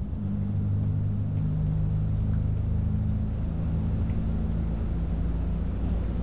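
Rolling thunder: a steady low rumble under the hiss of rain.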